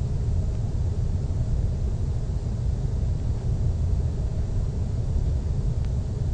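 Jet airliner cabin noise in cruise flight: a steady low rumble of engines and airflow.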